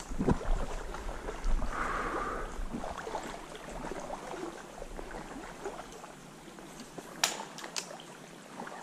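Shallow creek water sloshing and gurgling close by, with two sharp clicks about seven seconds in.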